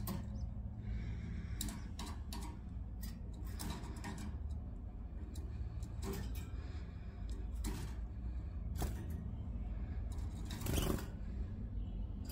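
Irregular short clicks and light rustles over a steady low hum, with a louder cluster of clicks near the end.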